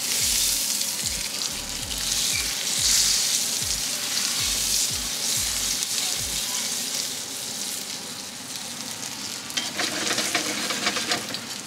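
Rib-eye steak searing in hot beef tallow in a frying pan, a loud steady sizzle that is strongest over the first half.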